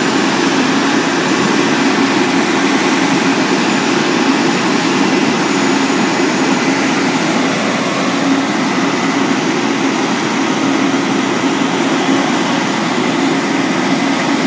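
Aerial ladder fire truck's engine and hydraulic system running, a loud steady drone, as the aerial ladder is raised.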